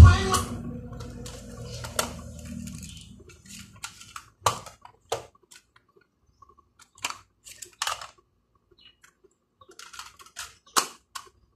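Music from the cassette player stops at the start and trails away over a few seconds. Then come scattered plastic clicks and rattles as cassette tapes and their plastic cases are handled and swapped, with a cassette being loaded into the Walkman near the end.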